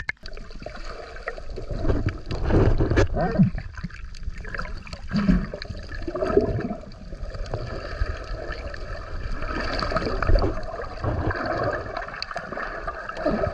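Seawater sloshing and gurgling around a waterproof camera moving at and just below the surface, with an irregular, muffled underwater wash.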